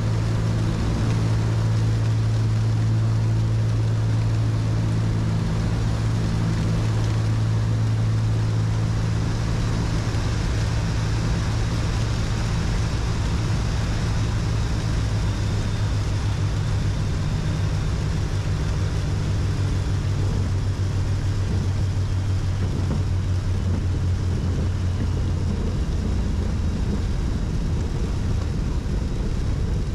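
Cessna 310Q's twin piston engines and propellers droning steadily in the cabin through the landing and rollout, the tone of the drone shifting about halfway through.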